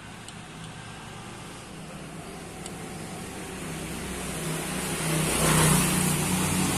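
Motor vehicle engine running with a steady low hum, growing louder through the last few seconds along with a rush of road noise.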